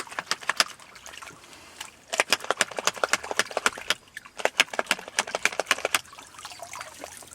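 Sand-fouled Glock pistol being rinsed out: quick runs of small clicks and spatters of water, several a second, in two long stretches with a pause between.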